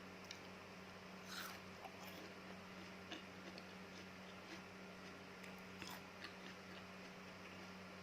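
Close-miked chewing and biting of fresh fruit pieces with palm-sugar chili sauce: scattered soft crunches and wet mouth clicks, the clearest about a second and a half in, around three seconds and near six seconds. A steady low electrical hum lies underneath.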